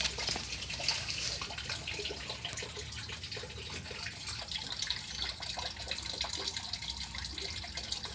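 Running water splashing and trickling steadily, with a spatter of small ticks in the rush.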